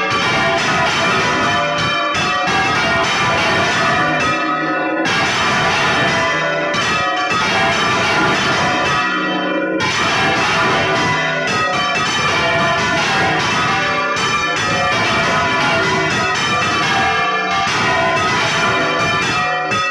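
Several church bells rung by hand by rope, heard loud from inside the bell chamber: one is swung right over on its headstock while others are struck, their strokes overlapping in a continuous dense peal of ringing tones.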